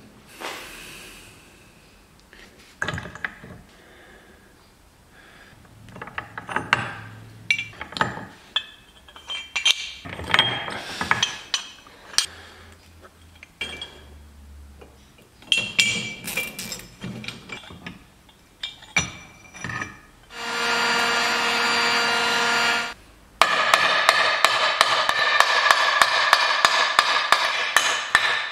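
Small metal parts of a Vespa GS150 engine clinking and tapping against the aluminium engine case as they are fitted. About twenty seconds in, a power tool, an impact wrench, runs freely with a steady whine for a couple of seconds. It then hammers rapidly for about five seconds.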